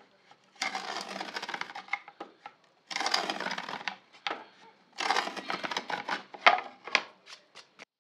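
Small wooden hand plane cutting a groove along the edge of a red oak panel: three long scraping strokes, with light knocks of the plane between them.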